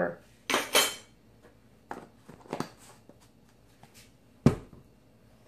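Spice jar and measuring spoon being handled at a wooden table: two short rustling scrapes near the start, a few light clicks, then one sharp knock about four and a half seconds in as something is set down on the tabletop.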